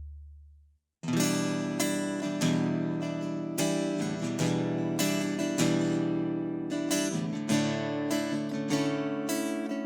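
Music: acoustic guitar strumming chords in a steady rhythm, starting about a second in after a low bass note fades away.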